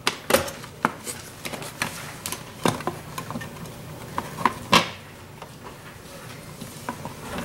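Plastic alarm keypad housing knocking and clicking against its wall-mounted back plate as it is hooked on at the top and fitted: a scatter of sharp taps, the loudest a little under five seconds in.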